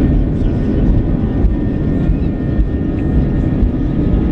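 Steady noise inside the cabin of an Airbus A321-200 rolling on the runway: the engines' even hum, with a few faint high tones over a heavy low rumble.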